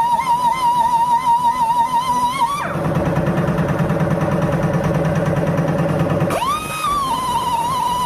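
Background music: a wavering, sustained high melodic line. For a few seconds in the middle it glides down into a dense, low buzzing passage, then rises back to the high line.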